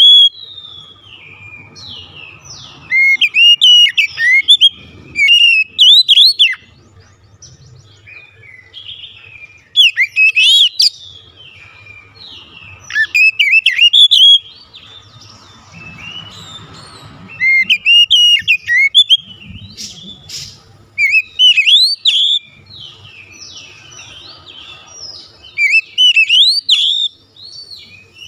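Oriental magpie-robin (kacer) singing loudly in bursts of rapid, varied whistled phrases that rise and fall, with a new burst every few seconds. Its song is packed with imitated phrases from other birds.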